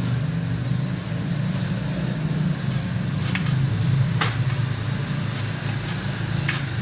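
A steady low mechanical hum runs throughout. A few sharp snaps from the karate strikes and steps come a little after three seconds, just after four seconds, and once more near the end.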